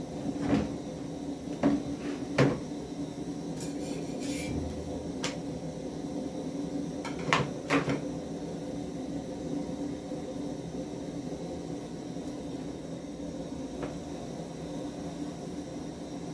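Scattered sharp knocks and clatters of a cooking pan and utensils, bunched in the first few seconds and again around the middle, with a brief hiss near four seconds, over a steady low hum.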